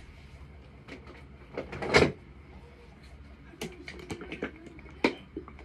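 Handling noises: a few separate sharp knocks and clicks, the loudest about two seconds in, with smaller ones later.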